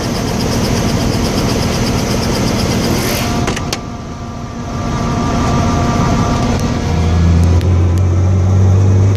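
Helicopter turbine and rotor running loud and steady, with a fast even rotor chop. About four seconds in, the hiss drops away; from about seven seconds a deep hum builds and grows louder.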